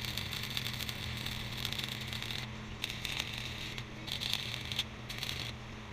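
Arc welding on a steel truck frame: the arc crackles steadily over a low electrical hum, drops out briefly a few times in the second half as the weld is stopped and restarted, and cuts off at the very end.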